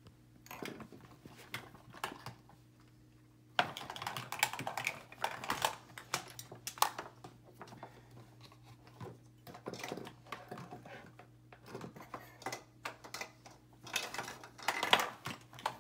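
Plastic makeup containers and tools clicking and clattering against each other as a hand rummages through a storage bin of makeup, in irregular runs of small clacks that get busier from about four seconds in, over a faint steady hum.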